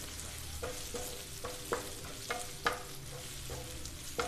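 Wooden spatula stirring sliced onions, tomato and ginger-garlic paste as they fry in oil in a non-stick pan, with a light sizzle and a series of short knocks of the spatula against the pan, the loudest about halfway through.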